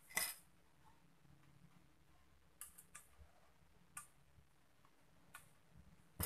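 Scattered sharp clicks and light knocks of a water pump's metal parts being handled and fitted together by hand, about seven in all at irregular intervals, the loudest just after the start and another near the end.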